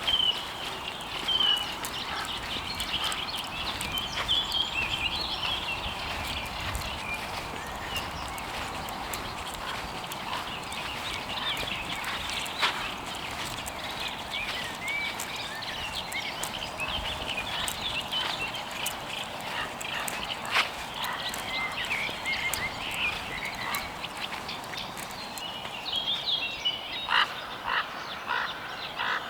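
A chorus of many short chirping animal calls, overlapping and continuous, with scattered crisp crackles of footsteps on dry leaves.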